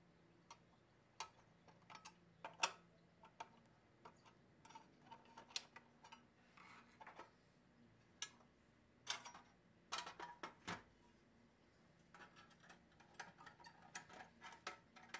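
Light metallic clicks and taps from a steel screwdriver working against the tabs of a pressed-steel toy truck body as it is pried apart. They come at irregular intervals, with the sharpest click a couple of seconds in and a busier run of taps around ten seconds.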